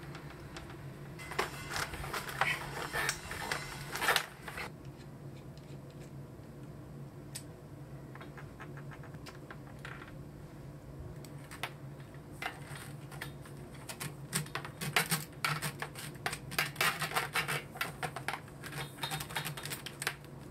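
Hands handling corrugated plastic conduit and a cable on a solar panel's back: bursts of rapid plastic clicks and scratches about a second in and again from about halfway to near the end, over a low steady hum.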